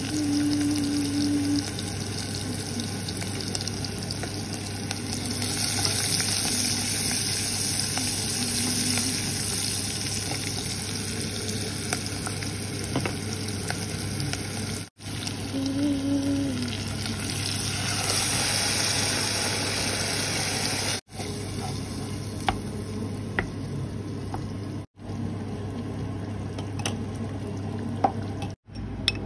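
Onions and then tomatoes sizzling in a pan while a wooden spatula stirs them, over a steady low hum. The sound drops out briefly four times.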